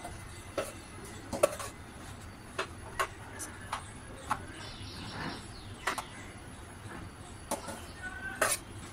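Steel spoon knocking and scraping against a plastic lunch box as rice is spooned in: about a dozen sharp, irregular clicks and clinks.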